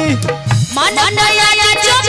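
Live stage-band folk music with a woman singing into a handheld microphone over a drum beat. There is a brief drop about half a second in, then a rising glide as the music swells back.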